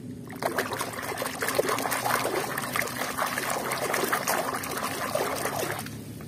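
A hand swishing and stirring through a tub of muddy water, with irregular sloshing and splashing that stops shortly before the end.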